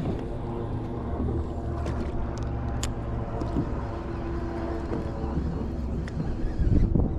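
Boat motor running steadily at low speed, with a few faint ticks and a brief louder low rumble near the end.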